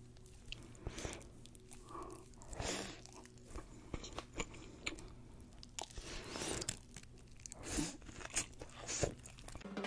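Close-miked eating of deep-fried sushi rolls: the crisp fried coating crunches and crackles with each bite, mixed with wet chewing.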